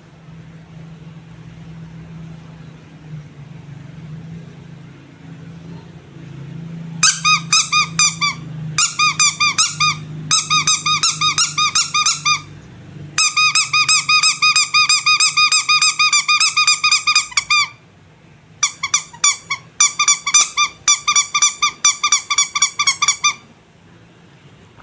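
Squeaky rubber animal toys squeezed in quick succession: four runs of rapid, high squeaks, several a second, with short pauses between runs. A low hum is all that is heard for the first several seconds.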